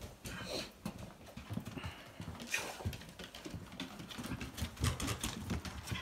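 Footsteps and a West Siberian Laika's claws tapping irregularly on a wooden plank floor as the dog is walked along.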